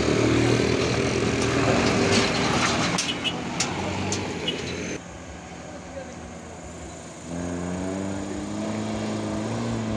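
A light diesel truck's engine labouring loudly up a rough gravel climb as it passes close, with sharp clicks and knocks around three to four seconds in. The sound drops suddenly about five seconds in, and about two seconds later a Mitsubishi L300 minibus engine comes in with a steady note, working as it climbs.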